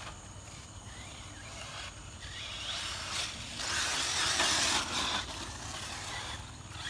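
Radio-controlled off-road car running on a dirt track: a faint motor whine that rises and falls over the hiss of tyres on dirt, with a louder rush of noise about four seconds in.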